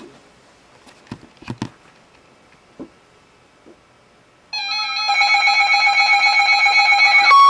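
A few faint clicks, then about four and a half seconds in a loud electronic alert tone with many overtones begins, pulsing rapidly. Near the end it gives way to a steady tone of about 1 kHz, the NOAA Weather Radio warning alarm tone that comes before a severe thunderstorm warning.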